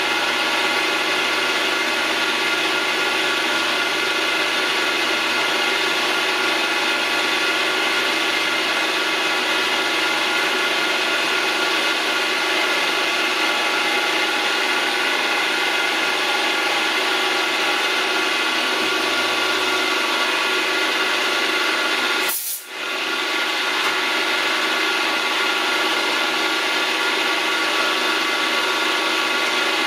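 Milling machine running steadily with a whine and cutting noise as its cutter works a small part held in a six-jaw chuck on a rotary table. There is a brief break about three-quarters of the way through, then it carries on.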